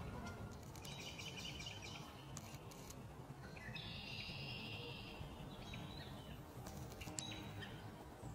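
Songbirds singing: a short trill about a second in and a denser, buzzier trill around four seconds in, with a few faint chips, over a steady low background rumble.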